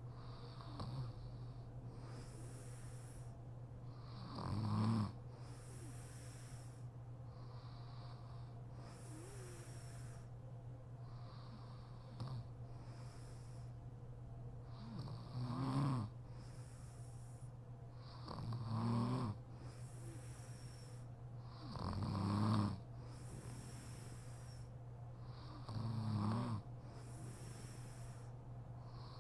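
A sleeping woman snoring: about five loud snores at irregular intervals, with softer breaths between them. A steady low hum runs underneath.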